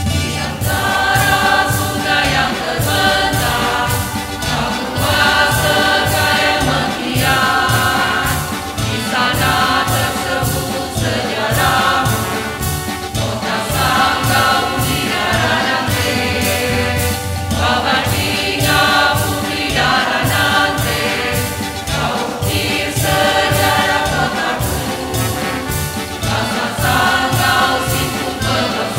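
Mixed choir of men and women singing to an instrumental backing that keeps a steady beat.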